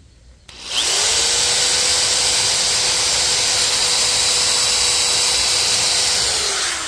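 Corded electric drill boring a pilot hole into a wooden board: the motor spins up about half a second in, runs at a steady whine, then winds down near the end.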